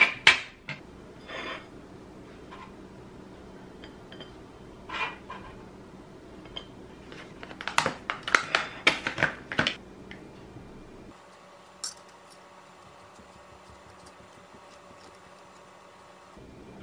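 Metal kitchen tongs clinking against a toaster-oven baking tray as toast is lifted off, followed by scattered clicks. About eight seconds in there is a quick run of clicks and clatter, then it quietens, with one sharp click near the end.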